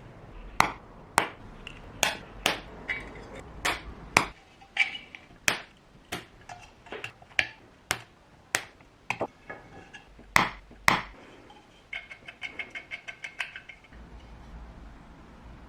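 Sharp, irregular taps and clicks of small metal parts being worked by hand, about two a second, some with a short ring. About twelve seconds in comes a quick run of lighter ticks lasting a couple of seconds.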